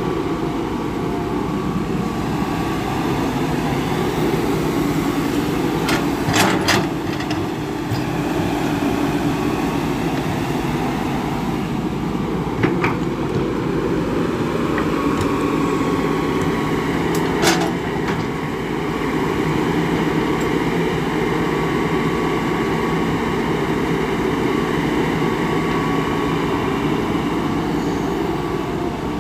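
Old Hitachi crawler excavator's diesel engine running steadily under digging load, with a few sharp knocks from the arm and bucket, a pair about six seconds in and single ones near 13 and 17 seconds.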